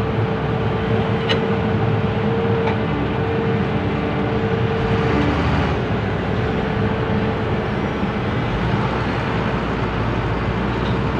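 Heavy diesel engines running hard and steadily as a soil-loaded dump truck, stuck in mud, works to get free with an excavator beside it. A steady high whine runs through the first half.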